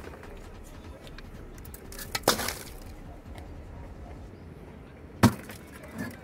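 Firewood knocking as it is stacked inside a clay tandoor oven: a pair of knocks about two seconds in and one sharp, louder knock about five seconds in, with a lighter one near the end.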